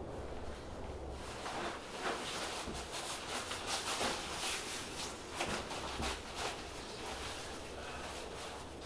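Crinkly rustling of camping gear being handled, with many short scuffs and small knocks.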